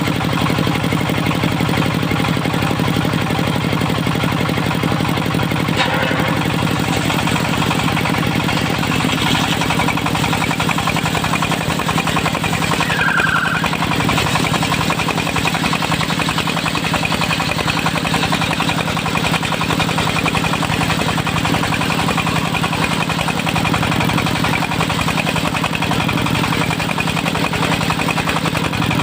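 Diesel engine of a mobile circular sawmill running steadily at a constant speed.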